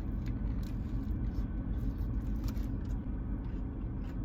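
Steady low rumble inside a car, the engine idling, with a few faint ticks.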